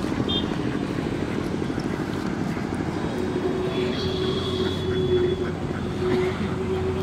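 A steady low drone from a running motor, with a steadier mid-pitched hum joining about three seconds in.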